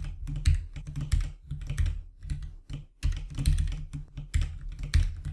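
Typing on a computer keyboard: irregular runs of quick key clicks with a brief pause about halfway.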